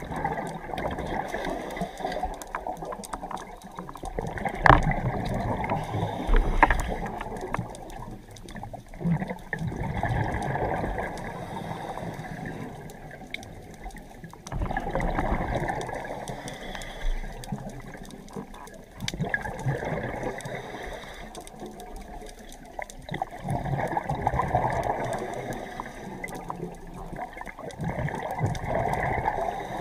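Scuba diver's regulator underwater: muffled gurgling bursts of exhaled bubbles that swell and fade about every four to five seconds, the strongest a few seconds in.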